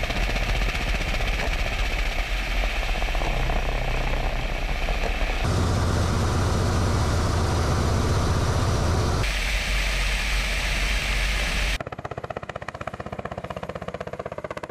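Ka-52 attack helicopter's rotors and turbines running in flight, a steady mechanical noise heard from on board that changes abruptly at each cut. Near the end it turns quieter, with a fast, even pulsing of the coaxial rotors heard from the ground as the helicopter flies past.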